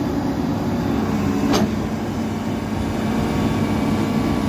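Hitachi Zaxis 210F amphibious excavator's diesel engine running steadily, with one short sharp knock about a second and a half in.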